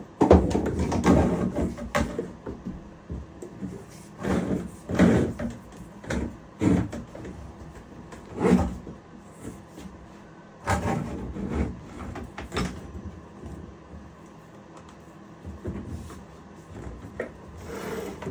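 Irregular clunks and knocks of gear being handled and set up in a woodshop, as a shop vacuum hose is rigged for dust collection. No motor is running.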